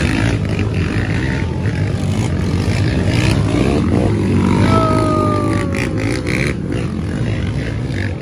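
Several racing quad (ATV) engines revving as the quads ride past. About halfway through, one engine's note falls steadily in pitch.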